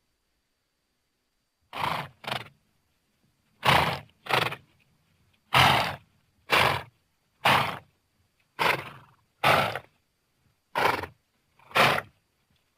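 A horse giving a series of short, noisy bursts of breath, about eleven of them. They come roughly one a second, a few in quick pairs, with silence between.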